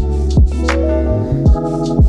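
Background music with a steady beat: deep kick-drum hits that drop in pitch, sharp percussion hits and held chords.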